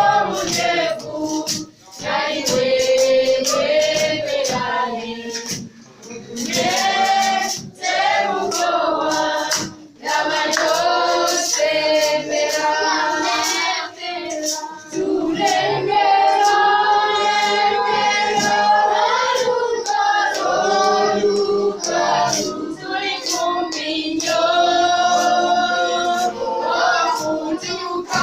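Church choir singing a gospel song with long held notes, backed by steady percussion.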